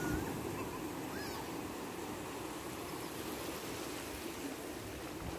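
Small sea waves breaking and washing up a sandy beach in a steady rush. A few faint, short high cries sound near the start and about a second in.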